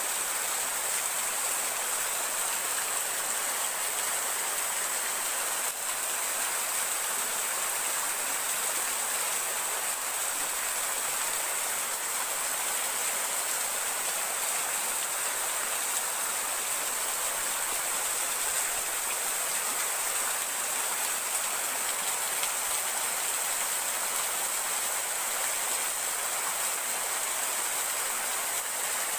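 Steady rush of a river and waterfall: an even wash of flowing water without a break.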